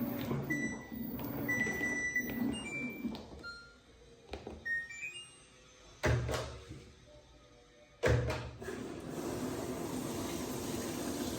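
LG WT16WV6 direct-drive washing machine: running noise with a few short beeps, then two loud thumps about two seconds apart, then water starting to rush steadily into the drum as it fills.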